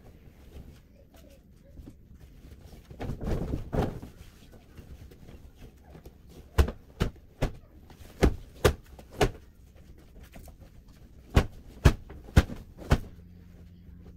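Bedding being handled as a bed is made: a swishing rustle of fabric about three seconds in, then a run of about ten sharp thumps and snaps as sheets and pillows are flapped and thrown onto the bed.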